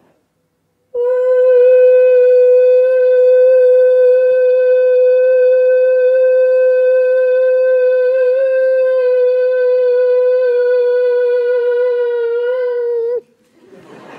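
A woman's voice, amplified through a PA, holding one loud, steady high note for about twelve seconds, sung at the wine glass's resonant pitch to make it shatter. It starts about a second in, wavers slightly near the end and cuts off abruptly, with no sound of glass breaking.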